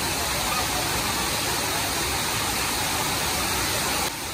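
Suruli Falls waterfall pouring over a rock ledge into the pool below, a loud steady rush of falling water. It drops slightly in level just before the end.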